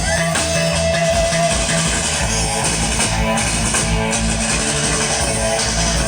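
Band music with guitar, bass guitar and drums playing steadily.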